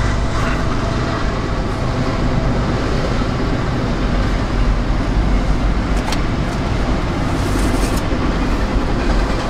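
Freight cars of two CSX trains rolling past on elevated double track: a steady rumble of wheels on rails, with a sharp click about six seconds in.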